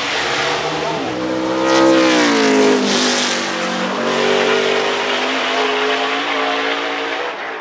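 NASCAR stock car's V8 engine running hard. It is loudest about two seconds in, where its pitch rises and then drops, and then runs on at a steadier note.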